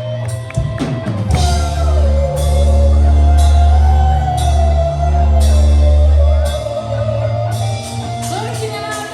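Live gothic-metal band playing loud rock music: heavy sustained low chords, a long wavering melody line held over them, and drums with repeated cymbal crashes.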